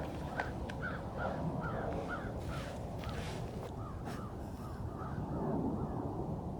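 A bird calling in a rapid series of short, rising-and-falling notes, about two or three a second, that stops about five and a half seconds in, over a steady low wind rumble.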